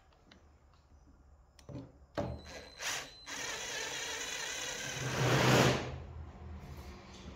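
Cordless drill-driver driving a small screw into the steel motor housing: a few short bursts about two seconds in, then a steady run of about three seconds, loudest near the end as the screw pulls tight, before easing off.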